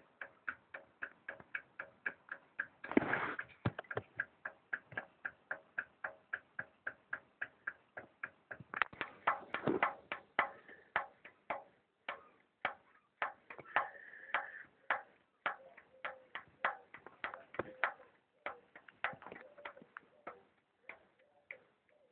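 Subaru EJ20 flat-four's pistons slapping in their bores as the engine is turned over: an even run of sharp taps about three a second, with a brief louder rasp about three seconds in. The owner takes the taps for piston slap, which he says does not show as a knock when the engine runs cold or hot.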